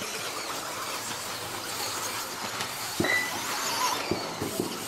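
Several 1/10-scale electric 2WD off-road buggies racing on a dirt track: a steady hiss of motors and tyres on dirt. Sharp clacks come about three seconds in and a few more near the end, and a short beep sounds about three seconds in.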